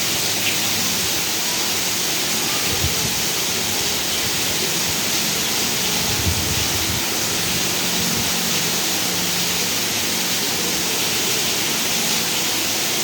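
Heavy rain falling, a steady hiss with a few faint low knocks.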